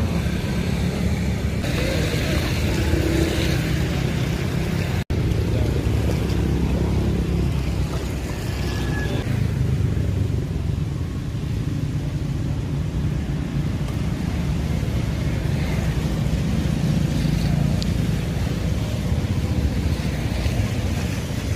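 Steady low rumble of road traffic, vehicles passing along the road beside the ditch, broken by a brief dropout about five seconds in.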